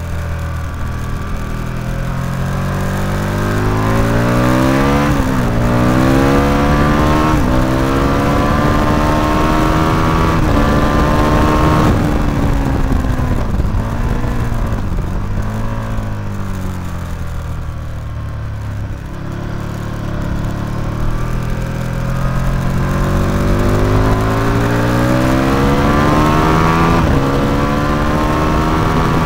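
Motorcycle engine heard from onboard, accelerating hard through several upshifts, each climb in pitch cut short by a brief dip at the gear change. About halfway through it winds down under braking with a few short downshift blips, then pulls up through the gears again.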